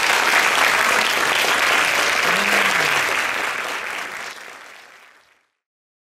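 Audience applauding, fading out near the end.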